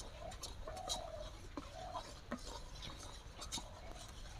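Wooden spatula stirring thick palm-fruit pulp in an iron wok, with scraping and clicking strokes against the pan. Short animal calls sound several times in the background.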